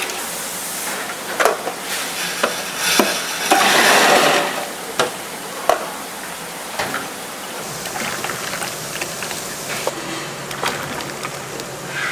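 Food sizzling in a large pan in an institutional kitchen while it is stirred with a utensil that scrapes and clicks against the pan. There is a louder stretch of about a second near the middle.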